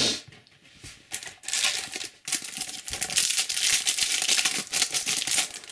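Foil Slam Attax booster pack wrapper crinkling and crackling as it is handled and opened, after a brief rustle at the start.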